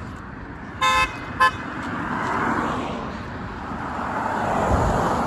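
A car horn honks twice about a second in, a short beep and then a briefer one, over the noise of traffic passing by.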